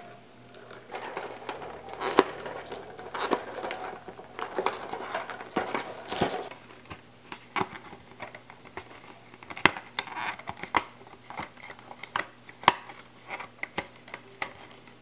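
Spiral bindings being twisted and worked out of a desk calendar and a notebook: irregular sharp clicks and rattles of the wire and plastic coils against the punched holes, with crinkling of paper and plastic.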